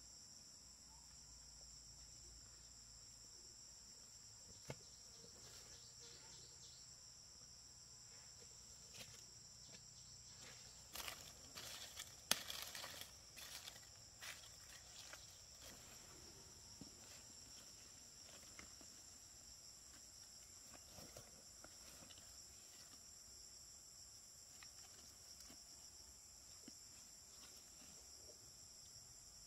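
Steady high-pitched insect chorus, faint, with no break. In the middle comes a few seconds of rustling and clicking, the sharpest click a little after twelve seconds.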